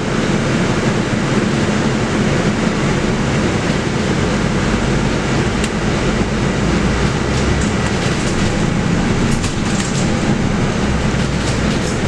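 Interior noise of a Mercedes-Benz O500LE bus under way: its OM936LA 7.7-litre six-cylinder diesel and ZF EcoLife automatic running with a steady low drone, heard from inside the cabin. A few light clicks and rattles sound in the second half.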